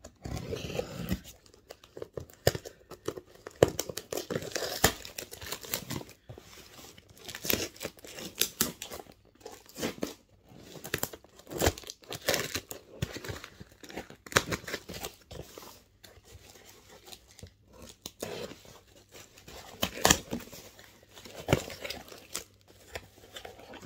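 A cardboard parcel being cut with a utility knife and torn open by hand close to the microphone: irregular tearing, scraping and crinkling of cardboard and packing, with small knocks.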